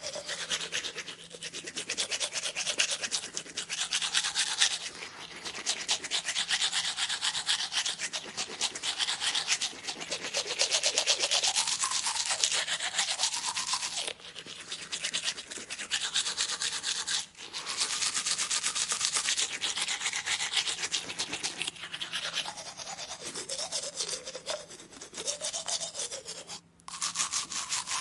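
Dental instrument buzzing and scraping: a fast, rasping hiss with a lower tone that rises and falls in short sweeps. It breaks off for a moment several times and starts again.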